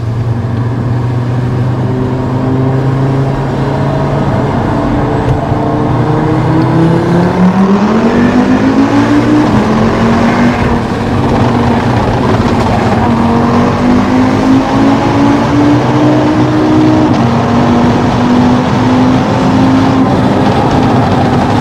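Stage-2 tuned Audi RS3 8P's 2.5-litre TFSI turbocharged inline five-cylinder, heard from inside the cabin under acceleration. It runs steadily for a few seconds, then the pitch climbs, drops at a DSG gear change about ten seconds in, climbs again more slowly and drops at another shift near the end.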